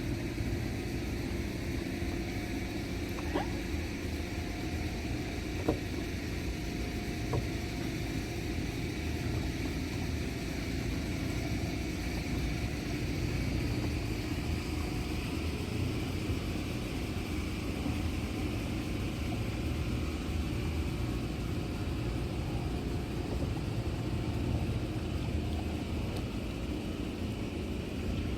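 Small hire motorboat running steadily on the river: an even, low engine rumble with a faint steady tone above it and a few light ticks in the first several seconds.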